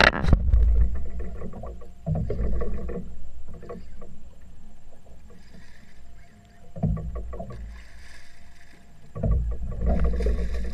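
Water sloshing and slapping against a small fishing boat's hull in uneven surges, loudest at the start.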